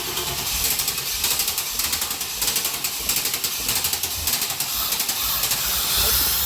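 Chevrolet LT1 350 V8 engine running in a Camaro Z28, a steady low hum with rapid, irregular clicking over it.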